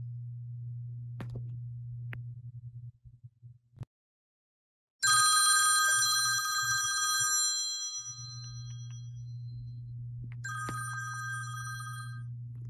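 Smartphone alarm tone ringing: a bright, many-toned chime starts loud about five seconds in and fades over about three seconds. A second, quieter burst of the same tone plays near the end.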